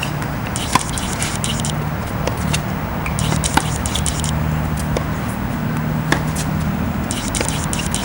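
Tennis balls being struck by rackets in a practice rally, sharp hits a second or two apart, the loudest three about a second in, halfway and near the end. Between them come stretches of fast high ticking from the camera's autofocus, over a steady low hum.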